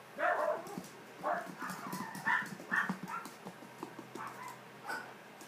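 Poodle puppies play-fighting, giving a string of short, high yips with soft rustling and pawing between them.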